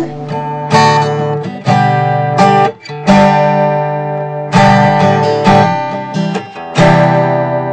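Acoustic guitar strummed in chords, a new chord struck every second or so and left to ring and fade.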